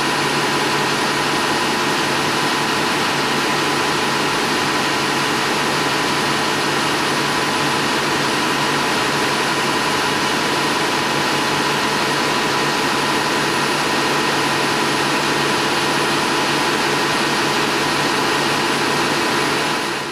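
Steady, loud rushing noise of machinery or blowing air, like large blowers, with several faint steady hums running through it.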